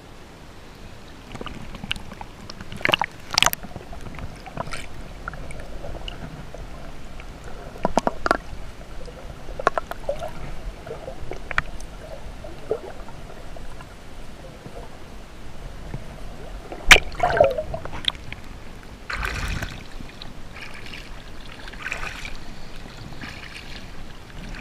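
Lake water splashing and sloshing close around a camera at the surface as a person swims, gurgling when the camera dips under. Several sharp splashes stand out, the loudest about two-thirds of the way through.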